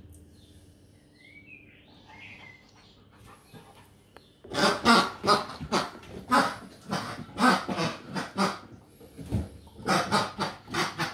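A dog's squeaky toy pig being squeezed and chewed, giving a loud rapid run of irregular squeaks that starts about four and a half seconds in.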